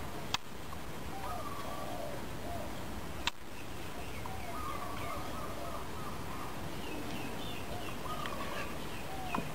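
Birds calling over and over in short, curving chirps. Two sharp clicks cut across them, the first about a third of a second in and the second just after three seconds.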